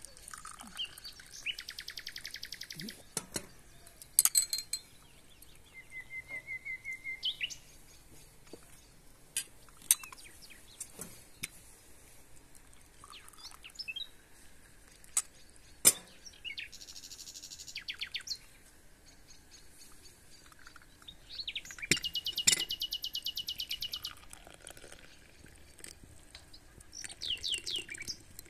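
Songbirds singing in short bursts of fast, high trills, with a run of falling notes near the end. A few sharp clinks of tea glasses and saucers being handled are the loudest sounds.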